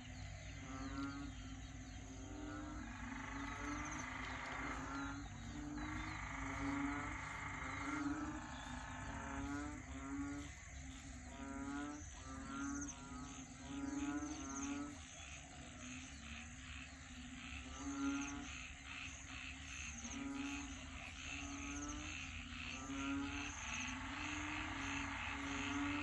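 A chorus of frogs calling over one another. A low call repeats about once a second, with quicker trilled calls above it, and fast high pulsing calls join about ten seconds in.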